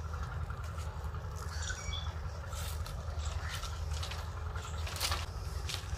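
Outdoor ambience: a steady low rumble, with a few short bird chirps about two seconds in and scattered short rustles or cracks in the second half.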